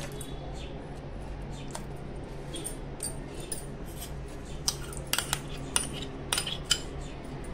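Scattered light clinks and scrapes of a spoon and glass bowl against a stainless steel mixer-grinder jar as soft cooked mango pulp is scraped into it, most of them in the second half, over a steady low hum.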